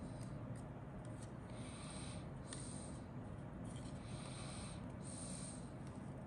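Grey injection-moulded plastic fuselage halves of a model kit rubbing and clicking against each other and the fingers as they are handled: short scratchy rubs about once a second with a few light clicks, over a low steady hum.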